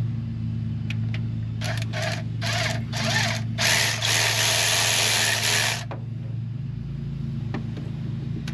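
Handheld power tool run in four short bursts and then one longer run of about two seconds, each rising and falling in speed, over a steady low hum.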